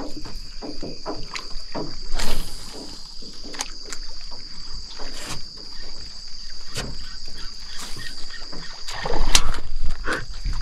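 Insects droning steadily at a high pitch, with scattered clicks and knocks from the fishing tackle and the aluminium boat. A louder rush of sound comes about two seconds in and again near the end.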